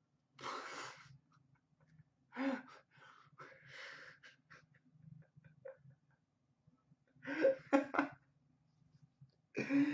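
A person's stifled, breathy laughter: several short bursts of breath, the last a quick double burst near the end.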